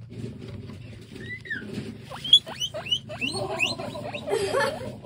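Guinea pigs squeaking: a string of short, high-pitched squeals, each rising in pitch, about three a second for a couple of seconds.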